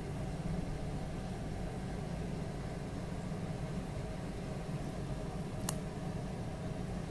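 Steady low hum, like a small motor or fan running, with one small sharp click near the end.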